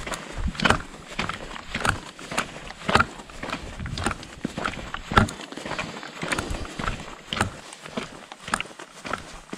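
Hiking footsteps crunching on a dirt-and-gravel volcanic trail at a steady walking pace, about two steps a second.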